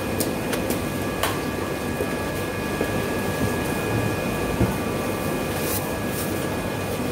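Steady indoor market background noise: a constant machine hum with a few thin steady tones and several short sharp clicks.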